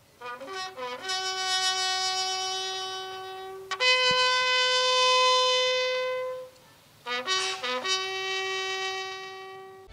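A single bugle sounding a slow ceremonial call for the fallen: a few quick short notes leading into long held notes, a higher held note in the middle, a brief break, then quick notes and another long held note.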